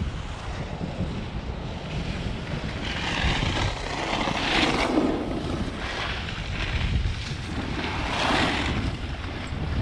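Wind buffeting the camera microphone on a moving chairlift: a steady low rumble, with louder gusts of hiss about three to five seconds in and again about eight seconds in.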